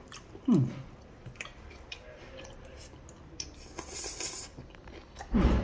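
A person eating noodles with a fork: chewing, with small clicks of the metal fork against the bowl. About half a second in there is a short hum that falls in pitch, a brief slurp of noodles near four seconds, and another short vocal sound just before the end.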